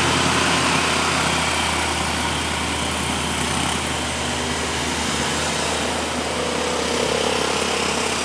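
Vehicle engines running steadily on a hill climb: a heavily loaded cargo truck pulling uphill with motorcycles close behind, heard as a steady low drone under road noise. A higher engine note builds near the end.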